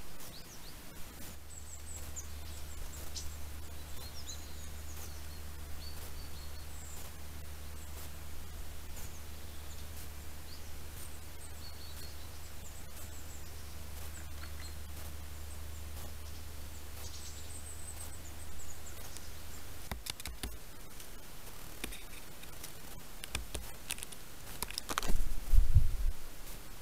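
Faint, short, high chirps of small birds over a steady low hum. The hum stops about two-thirds of the way through. Near the end come a few clicks and one brief, loud, low thump.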